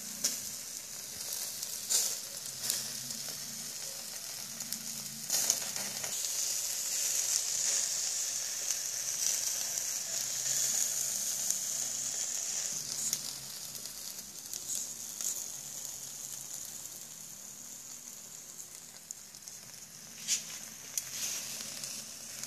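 Marinated chicken sizzling on a grill grate over hot charcoal: a steady hiss, louder in the middle stretch, broken by occasional sharp pops and crackles.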